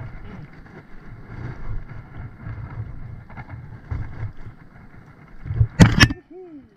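Water lapping and wind rumbling on the microphone while a hooked ebek, a trevally, is played at the surface. About six seconds in, the fish thrashes and throws a loud splash.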